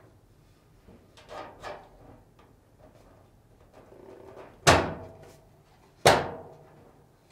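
Sheet-metal upper frame plate of a dryer being worked into place: light scraping and rattling, then two loud metallic bangs about a second and a half apart, each ringing briefly, as the plate is pushed down until it seats.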